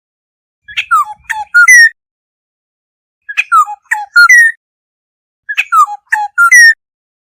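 Black-hooded oriole calling: three short phrases of quick whistled notes that slide down in pitch, each phrase ending on a higher whistle. The phrases come about every two seconds, with silence between them.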